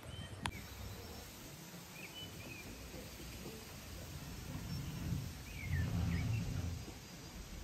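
A few short bird chirps over faint outdoor background noise at dawn. There is a single click about half a second in, and a low rumble swells near the end.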